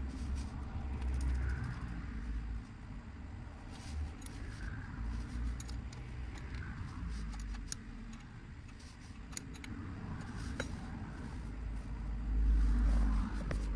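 Small metallic clicks and rattles of a bicycle's front caliper brake and rubber brake pad being handled and fitted by hand, over a steady low rumble that gets louder near the end.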